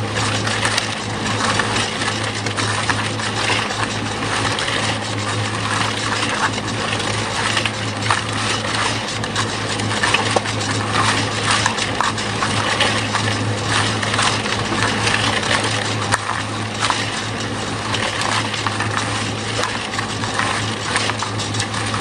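A steady low hum with a continuous, dense clatter of small hard pieces clinking and rattling over it.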